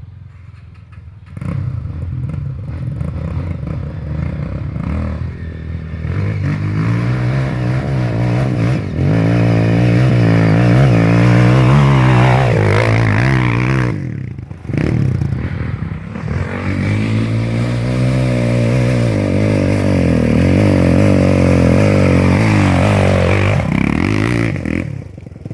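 Single-cylinder four-stroke dirt bike engine being ridden, its revs rising and falling. It comes in about a second and a half in, drops off briefly about halfway through, then pulls again and fades near the end.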